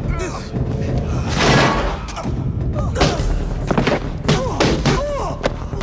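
Movie fight sound effects: a string of punch and body-impact thuds mixed with men's grunts and yells, over a steady music score.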